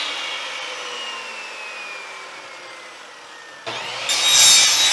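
Electric miter saw coasting down after cutting through PVC pipe, its whine falling slowly in pitch and fading. About three and a half seconds in, the motor starts up again with a sudden jump in level and the blade cuts into the next length of pipe.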